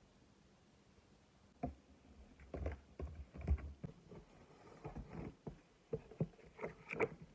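Faint, irregular taps and knocks of objects being handled in a small room, starting about a second and a half in.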